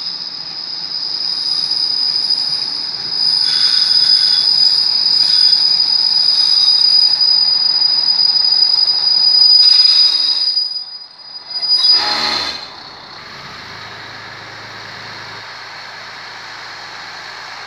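Train wheels squealing, one loud, steady, high-pitched squeal as a locomotive-hauled train rolls past. The squeal ends about twelve seconds in with a short burst, and a quieter steady low hum follows.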